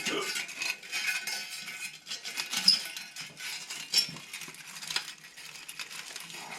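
Humidifier pad being worked into its holder by hand: a run of scratchy rustling and small clicks, with a couple of sharper metallic clinks in the middle.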